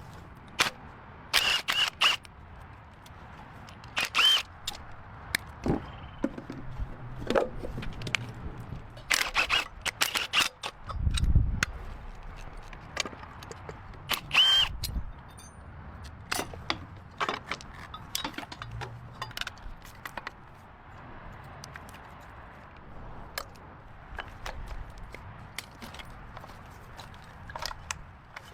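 Irregular metallic clicks and clinks from tools and engine parts being handled, some ringing briefly, with a dull low thud about eleven seconds in.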